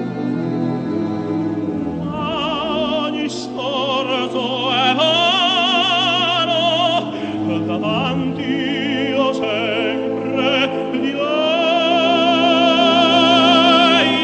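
Operatic tenor singing an Italian aria with wide vibrato over a sustained orchestral accompaniment. The orchestra holds chords alone for about the first two seconds before the voice comes in.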